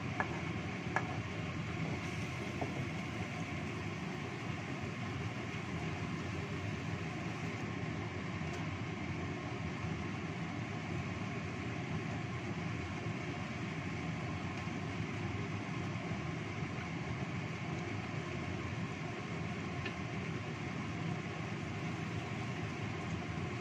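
A chicken and coconut-milk stew sizzling steadily in a wok on a gas stove. A spatula clicks against the wok about a second in.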